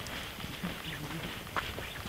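Footsteps on a dirt-and-gravel path at a walking pace, an irregular run of short crunches.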